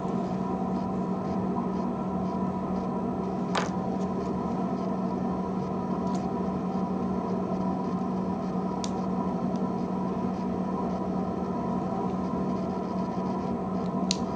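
Steady low hum of room or ventilation noise, with a few short light clicks of a plastic pry tool working the plastic front housing of a BlackBerry Tour phone.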